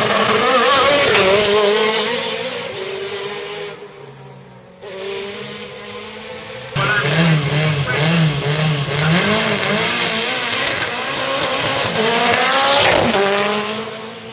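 A hill-climb race car's engine accelerates hard away from the start, its revs climbing and dropping through the gears before it fades off. A second race car then revs repeatedly at the start line in short throttle blips, and launches with its revs rising sharply near the end.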